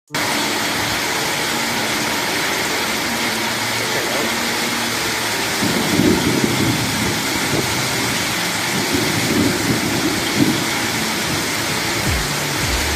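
Torrential rain and storm wind: a dense, steady hiss, with louder gusting rushes about six seconds in and again around nine to ten seconds.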